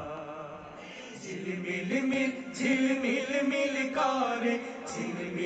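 Bengali wedding song playing as background music: a held melodic line between sung verses, growing louder about a second in.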